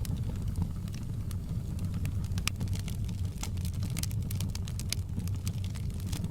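Wood fire crackling in a fireplace: scattered sharp pops and snaps, busier near the middle, over a low steady rumble.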